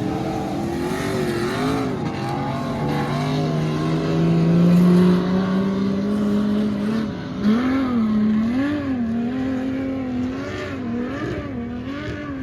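Car engines revving hard. One holds high revs, climbing slowly, then from about halfway the pitch swings up and down over and over, roughly once every 0.7 s, as an engine is blipped repeatedly.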